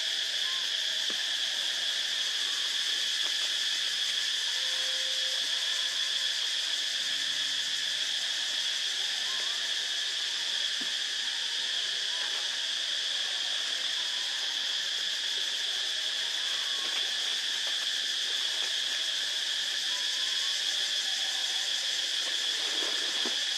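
Insects droning in a steady, unbroken high-pitched chorus.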